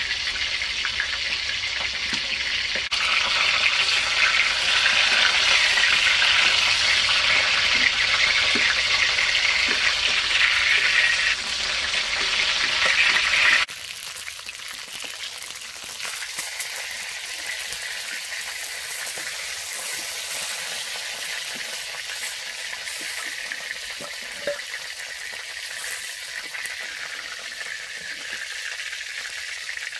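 Whole fish frying in hot oil in a wok, a steady sizzle. It is loud for the first dozen or so seconds, then drops suddenly to a quieter sizzle that carries on.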